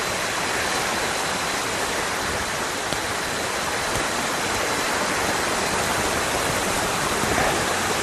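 Steady, even rush of falling water: the waterfall in heavy flow after the rain and heavy rain falling on the forest blend into one unbroken noise.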